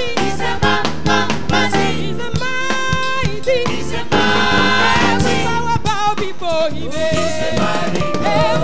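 Live gospel praise music: voices singing over a band with a drum kit beat, with long held notes about two to three seconds in.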